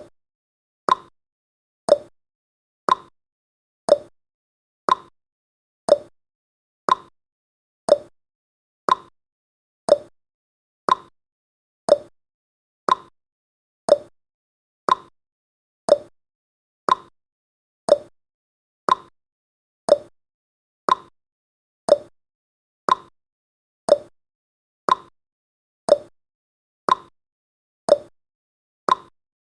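Countdown timer's ticking sound effect: one short, sharp tick every second, alternating between a slightly higher and a slightly lower tick like a clock's tick-tock.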